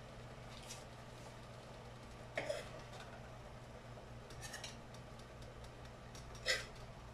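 A metal spatula clinking and scraping against a frying pan and a stainless steel plate about four times as food is dished out, the loudest knocks about two and a half seconds in and near the end, over a steady low hum.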